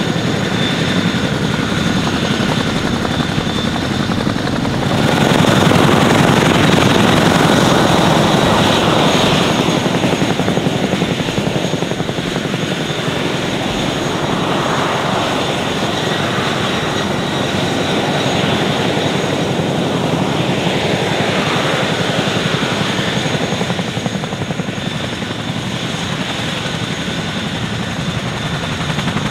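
Boeing CH-47F Chinook tandem-rotor helicopter running on the ground with both rotors turning: a dense, fast rotor chop under a steady high whine from its turbine engines. It grows louder about five seconds in and eases off again after a few seconds.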